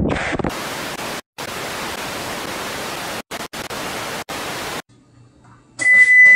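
TV-static sound effect: a steady, even hiss that cuts out briefly a few times and stops about five seconds in. Near the end a loud, high electronic appliance beep starts.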